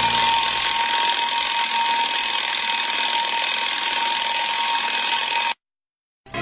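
Alarm clock ringing loudly and steadily for about five and a half seconds, then cutting off abruptly, used as a wake-up sound effect in the track.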